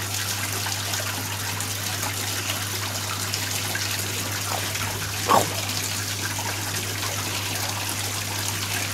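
Steady trickle of running water with a low, steady hum beneath it. About five seconds in comes one short call that falls in pitch.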